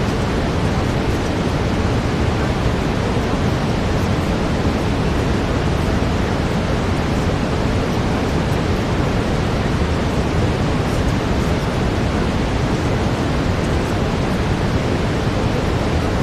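Steady synthetic brown noise: an even, unbroken rushing hiss weighted toward the low end, with no change in level or character.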